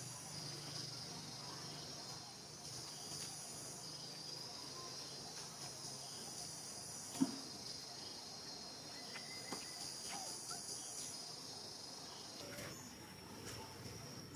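Steady high-pitched chorus of insects, with a higher layer that drops out about eleven seconds in. Scattered soft ticks and rustles sound over it, the loudest a single sharp tick about seven seconds in.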